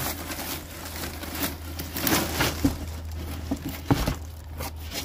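Dry twigs and crumpled newspaper rustling and crackling as they are pushed into a metal drum lined with cardboard, with a sharp knock about four seconds in.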